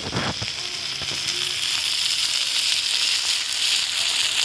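Burger patties, buns and potato wedges frying on a Blackstone flat-top griddle: a steady sizzling hiss, with a couple of knocks right at the start.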